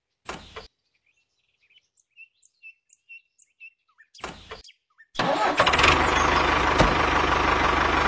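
Scattered small bird chirps, then about five seconds in a tractor engine starts and runs steadily with a low, even rumble.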